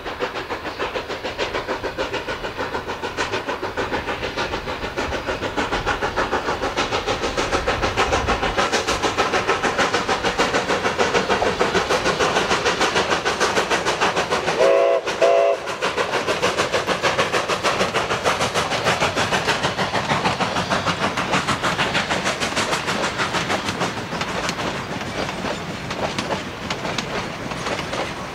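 Narrow-gauge K-36 steam locomotive working past with rapid exhaust chuffing, then the rumble and clatter of its passenger cars rolling by on the rails. Its whistle sounds briefly about halfway through.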